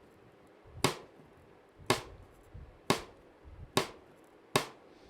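Cross-stick (rim click) strokes on a snare drum: the stick laid across the head with the palm resting on it, its back end knocked against the rim. Five woody clicks about a second apart.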